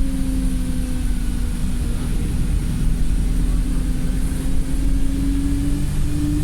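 Wright StreetLite single-deck bus heard from on board, its engine and driveline running with a steady whine over low road rumble. The pitch sags slowly, then jumps up about six seconds in and begins to rise. The bus is in limp mode with reduced power.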